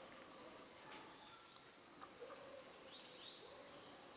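Rainforest ambience: a steady high-pitched insect drone, with scattered faint bird calls, including two quick sweeping calls about three seconds in.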